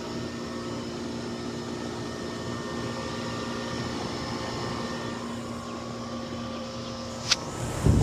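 Goodman heat pump outdoor unit running with a steady hum. A sharp click comes about seven seconds in, and near the end air from the top fan buffets the microphone.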